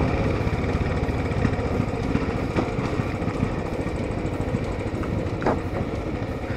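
Royal Enfield Classic 500's single-cylinder engine running steadily with an even beat as the motorcycle rides slowly over a dirt track.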